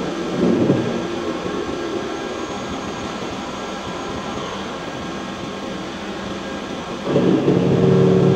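Steady machinery noise of a heavy-industry factory hall. About seven seconds in, a loud droning hum with several steady tones starts up.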